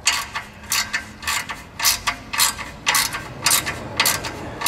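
Hand ratchet clicking in short strokes, about two a second, as it tightens a worm-drive hose clamp around a loose exhaust heat shield to stop the shield rattling.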